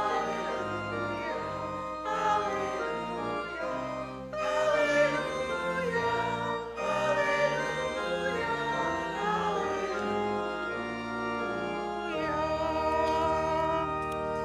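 Congregation singing a hymn to pipe or electric organ accompaniment, ending on a long held final chord.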